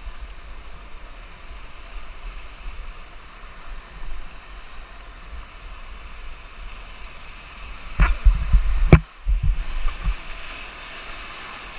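River rapids rushing past an inflatable raft, heard from a camera at the bow with water and spray on the microphone. About eight seconds in there are two seconds of loud splashing and knocking as the raft runs into the white water.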